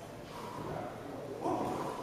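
Indistinct background voices, with a louder call about one and a half seconds in.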